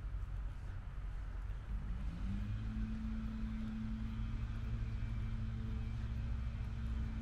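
An unseen engine speeds up about two seconds in, then holds a steady hum, over a low rumble.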